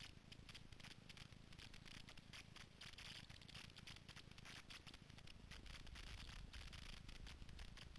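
Faint, irregular scratching and crackling of a snowboard sliding over chopped-up, tracked snow, with a low rumble beneath.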